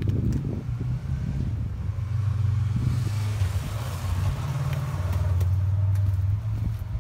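1985 Mexican VW Beetle 1200's air-cooled flat-four engine idling steadily, heard close to the twin tailpipes as a low, even exhaust note.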